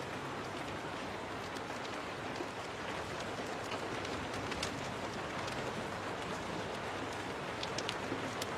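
Steady rain, an even hiss with scattered sharp ticks throughout.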